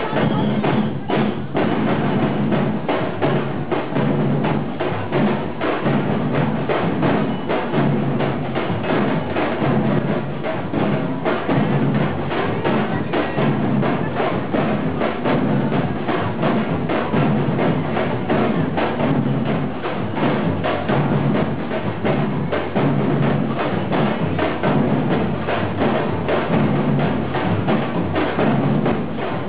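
Percussion-led music with a steady beat: rapid knocking strikes over a low drum pulse.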